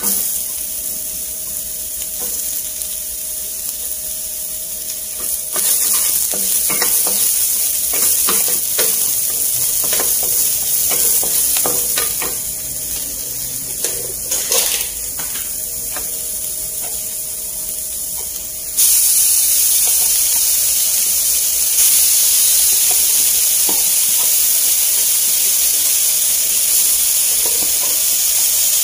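Vegetables sizzling and frying in a hot stone-coated nonstick frying pan, with a wooden spatula stirring and scraping them in short strokes. The sizzle gets louder about six seconds in, and again suddenly about two-thirds of the way through as more food goes into the pan.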